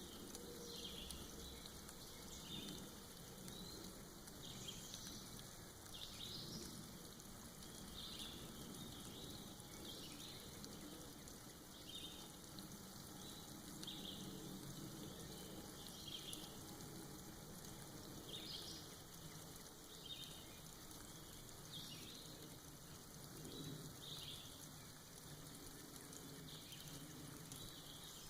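Faint, soft forest rain: water falling and dripping off moss, a steady hiss with short high ticks every second or two.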